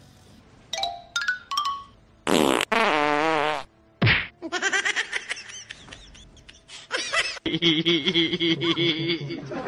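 Three short squeaky tones, then a loud, drawn-out fart with a wavering buzz. It is followed by a thud and a stretch of pitched, warbling sound with music.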